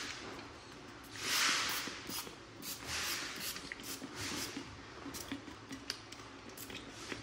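Spray hissing in three short bursts, the longest and loudest about a second in, followed by scattered light clicks and taps.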